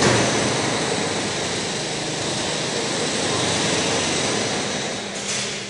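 Steady machine noise: an even rushing hiss with a faint low hum, easing off slightly near the end.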